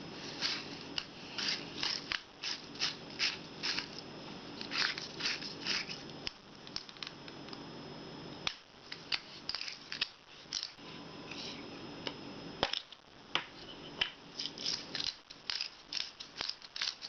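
Salt and pepper being ground or shaken onto bread: a run of short, crunchy strokes, about two a second, that pause briefly twice.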